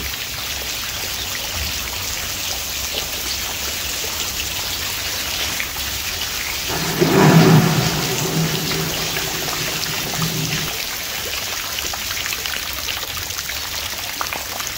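Heavy rain pouring into standing floodwater, a steady hiss of drops splashing. About seven seconds in, a louder low hum with a steady pitch comes up over it and lasts about four seconds.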